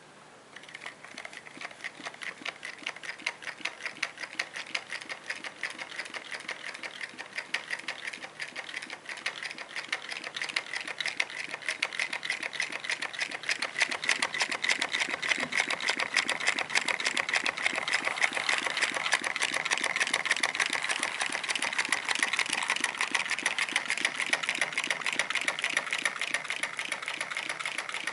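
Homemade walking beam Stirling engine of cardboard and drink cans running, its moving linkage clattering in a fast, even rattle. The clatter starts about half a second in and grows louder over the first half.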